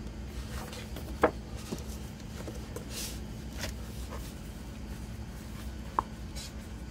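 Heavy printed pages of a photo book being turned by hand: paper sliding and rustling, with a sharp tap about a second in and another near the end, over a steady low hum.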